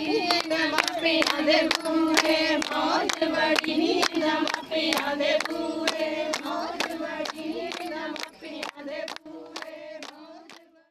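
Group of women singing Punjabi boliyan together while clapping in rhythm for giddha, about three claps a second. The sound fades out near the end.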